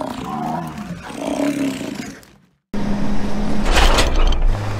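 A bison bellowing in deep, wavering roars for the first two seconds or so, which stops abruptly. Then, after a brief gap, a vehicle with a flatbed trailer runs down a gravel road: a steady low rumble with the trailer rattling over the bumps.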